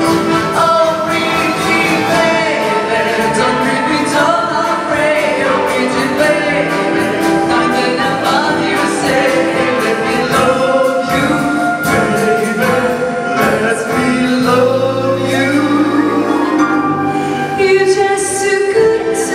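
A woman singing into a microphone, accompanied by a wind band with brass, woodwinds and drum kit; a low bass note is held for a few seconds in the second half.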